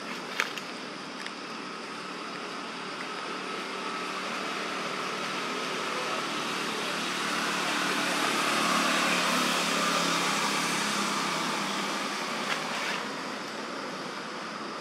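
A motor vehicle passing by: steady engine and road noise that slowly grows to its loudest about halfway through, then fades away. A couple of short sharp clicks, one right at the start.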